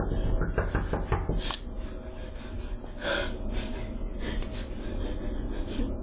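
A woman's fist pounding rapidly on a front door, a quick run of knocks in the first second and a half, then her breathing hard. All of it comes through a doorbell camera's microphone, thin with no high end.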